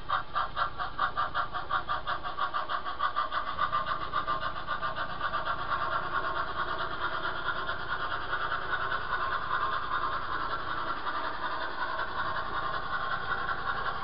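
Model steam locomotive's onboard sound chuffing as it pulls away with its passenger train. The beats come about four a second at first and speed up until they run together into a steady rush.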